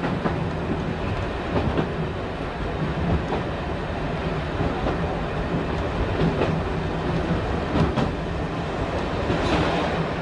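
Diesel multiple unit heard from the driving cab while under way: its engine drones steadily and the wheels clack over rail joints every second or two. A brief hiss swells near the end.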